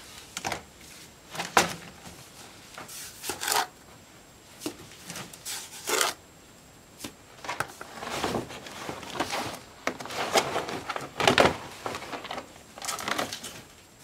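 A stiff black waterproofing sheet being unrolled and spread by hand over a rubble floor, making irregular rustling and crackling with a few sharp, louder crackles.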